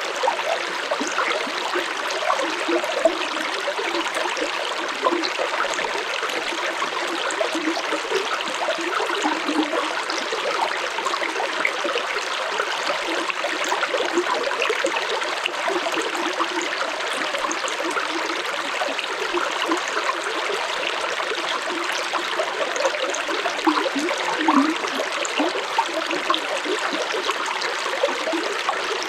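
Stream water flowing steadily over rocks, a constant rushing with small gurgles and splashes.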